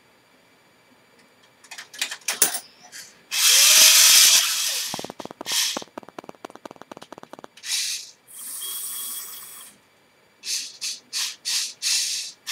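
K'NEX claw-game motors whirring in short starts and stops as the joystick drives the claw, with a run of rapid clicking in the middle and several short bursts near the end.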